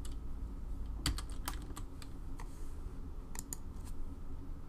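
Computer keyboard being typed on: a handful of irregular single keystrokes, several close together about a second in, over a low steady hum. The keystrokes edit a spreadsheet formula's cell reference from A1 to A2.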